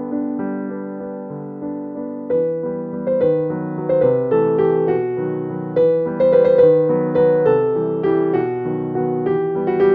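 Background piano music: a gentle melody of struck notes over held chords.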